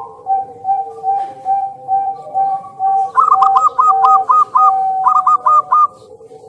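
Zebra dove (perkutut) cooing: a string of short notes about three a second, then from about three seconds in a faster run of higher, hooked notes in two bursts.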